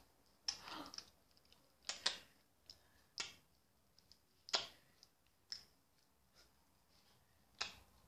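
A budgerigar's beak nibbling at a person's lips, making about nine soft, scattered clicks with silence between them.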